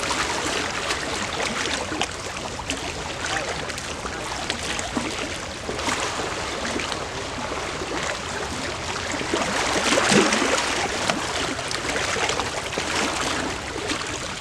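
Lake water lapping and splashing steadily, with a louder wash about ten seconds in.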